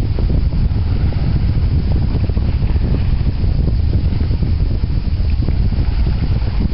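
Heavy wind buffeting the microphone, a loud steady low rumble, with small irregular splashes of sea water.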